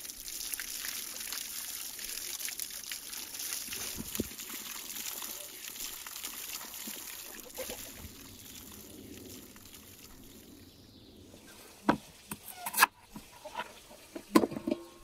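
Spring water trickling and splashing as vegetables are rinsed under a running stream, fading out about three-quarters of the way through. Near the end come a few sharp knocks.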